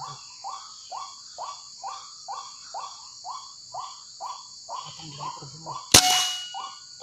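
White-breasted waterhen calling in a fast repeated series, about two falling notes a second, over a steady insect trill. About six seconds in, a single sharp PCP air-rifle shot with a brief ringing after it.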